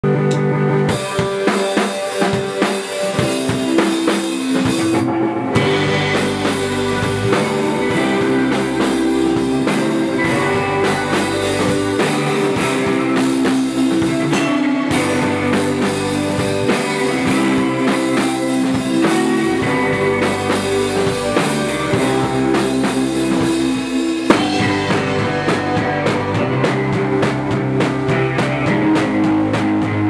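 A rock band playing live: electric guitars, a Fender Mustang bass guitar and a drum kit. The low end and drums come in about five and a half seconds in, after an opening of guitars, and the band plays on steadily.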